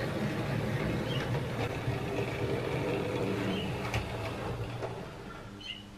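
Hornby Dublo tank engine with an Alnico block magnet motor running along the track: a steady motor hum with wheel rumble, fading about five seconds in as the loco moves away. It runs smoothly, the sign of a motor in good condition.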